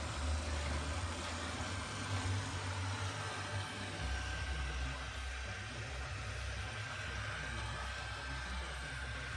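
Roborock S6 robot vacuum running while mopping: a steady hiss of its suction fan with a low hum and a faint, high, steady whine.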